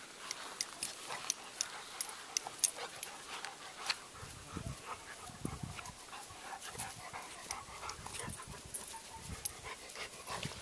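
A Welsh Springer Spaniel puppy and a yellow Labrador retriever at play: panting and scuffling, with many quick sharp clicks through the first few seconds and irregular deeper bursts after that.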